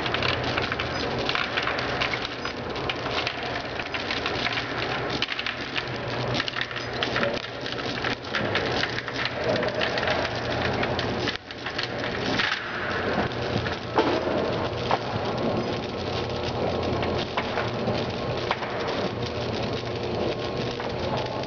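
Industrial gum feeder running: a dense, rain-like clatter of chewing-gum pieces tumbling through the machine and dropping from the discharge tube into a plastic bucket, over a steady motor hum. The sound dips briefly about halfway through.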